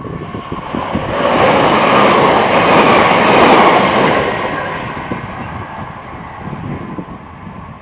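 Greater Anglia class 379 Electrostar electric multiple unit passing at speed close by: a rush of wheel and rail noise that builds about a second in, is loudest around three seconds in, then fades steadily as the train draws away.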